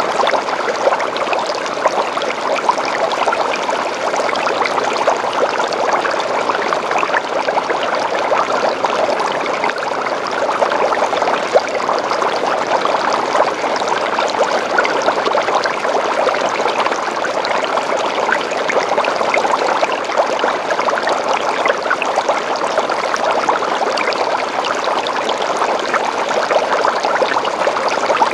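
Aquarium water running and bubbling steadily, a dense crackle of small splashes and bubbles.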